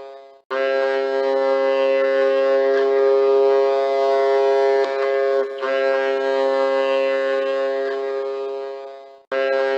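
Background music of long held chords, each sustained several seconds before a short break and the next chord.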